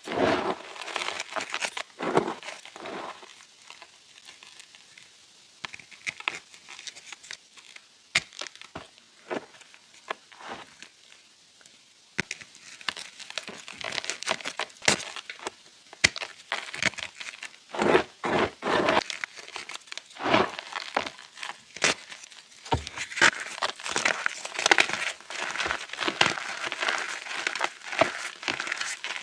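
Chunks of reformed chalk crunching and crumbling in irregular crackly crunches, sparse for several seconds and then coming thick and fast.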